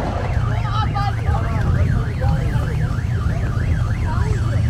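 An electronic siren yelping, its pitch sweeping rapidly up and down about three to four times a second, over a steady low rumble of street noise.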